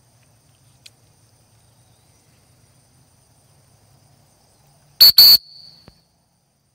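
Two short, loud, high whistle blasts about five seconds in, calling the dog back across the field. Crickets chirr steadily underneath.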